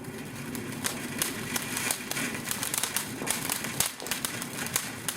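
A small firework crackling: rapid, irregular sharp cracks and pops, many per second, that start about half a second in and keep going.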